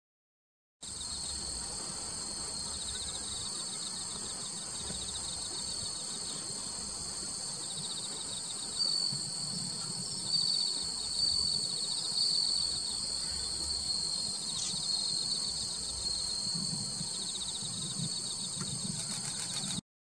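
Dense, steady chorus of crickets trilling high, with a few louder high chirps standing out about nine to thirteen seconds in.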